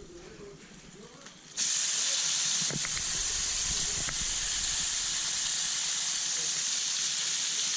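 Oiled chuck steak laid into a preheated, unoiled pan, setting off a sudden loud sizzle about one and a half seconds in that then holds steady as the meat sears.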